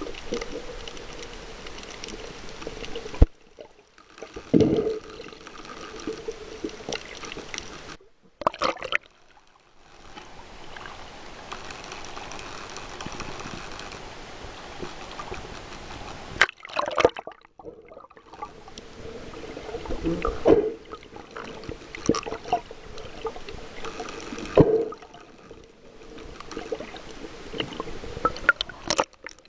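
Sea water sloshing and gurgling around a camera as it moves under and through the surface, with a few sharp splashes. The sound drops out briefly three or four times.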